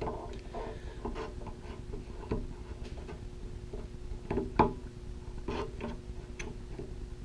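Light clicks and rubbing of a rubber water-pump impeller being twisted counterclockwise by hand down into its pump housing cup, with a sharper click a little past halfway. A faint steady hum runs underneath.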